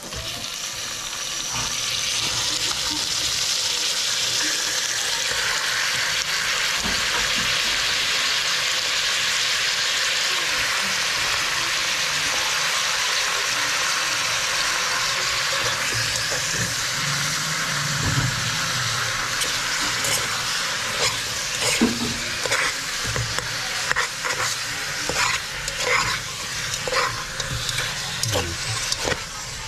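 Needlefish pieces sizzling steadily as they hit the hot oil in a metal pot with sautéed onion, ginger and tomato, searing briefly before water goes in. From about two-thirds of the way in, the sizzle fades and a utensil knocks and clinks against the pot as the fish is stirred.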